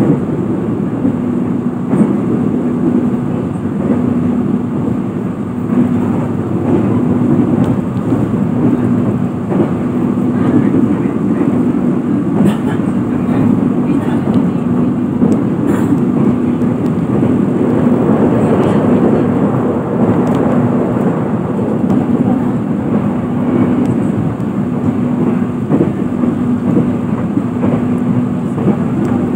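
Steady running noise of a passenger train coach at speed, heard from inside the carriage, with a low hum that keeps breaking off and coming back.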